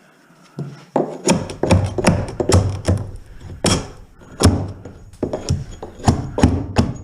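A run of sharp knocks and blows from hand tools on wood and metal while copper wiring is pulled out of a stripped wall. The knocks start about a second in and come irregularly, about two to three a second.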